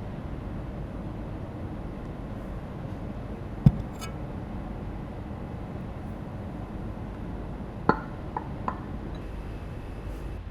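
Crockery or glassware being handled over a steady low background rumble. A single knock, as of something set down on a hard surface, comes about three and a half seconds in, and three light clinks follow about eight seconds in.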